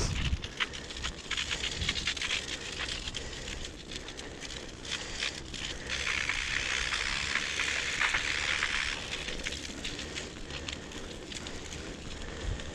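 Snow crunching and crackling under bicycle tyres, a steady stream of small crisp clicks that grows denser and louder in the middle.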